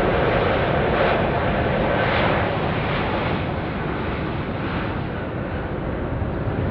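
Korean Air Airbus A380's four Engine Alliance GP7200 turbofans on final approach, a steady jet rush that eases slightly a few seconds in.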